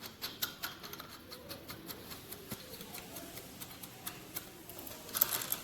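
Light, uneven clicking and ticking of small metal parts and hand tools being handled while a part is fitted at an electric bike's pedal crank.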